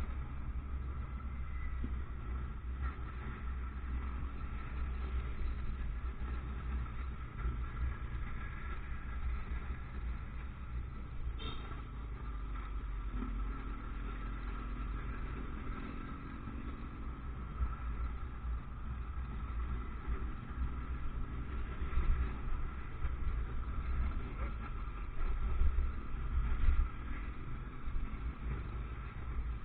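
Riding a motorcycle in town traffic: steady low wind and road rumble with engine noise, and other vehicles passing. There is a brief click about eleven seconds in.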